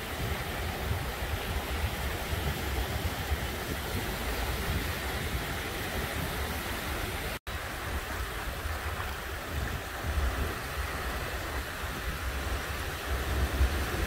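Small sea waves washing in over a flat sandy beach: a steady wash of surf with a low rumble underneath, broken by a momentary gap about halfway through.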